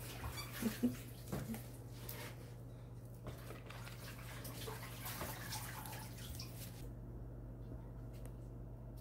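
Faint rustling and light handling noises of gloved hands working raw prawns on a foam tray, over a steady low hum; a couple of short louder sounds come about a second in, and the handling stops about seven seconds in.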